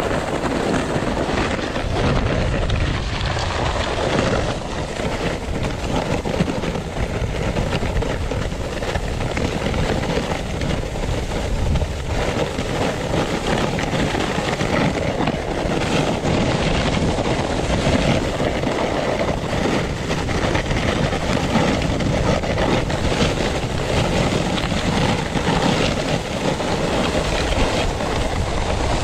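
Snowfeet mini skis scraping and hissing steadily over hard-packed, icy snow, heard close up, with a low rumble underneath.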